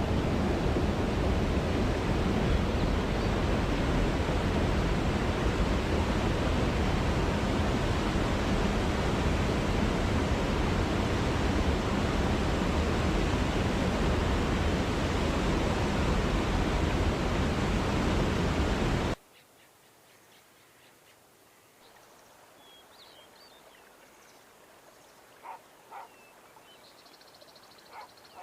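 Steady rushing water noise of a nature-sound background that cuts off abruptly about two-thirds of the way through. Quieter outdoor ambience follows, with a few faint bird chirps.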